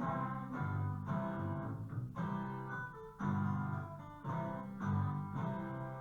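Music: an instrumental passage of a song, plucked guitar-like chords changing about once a second, with no singing in this stretch.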